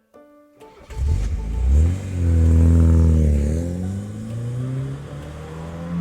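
Motor vehicle engine sound effect: the engine starts and revs up, dips and rises again briefly about three seconds in, then settles to a steady lower-pitched run.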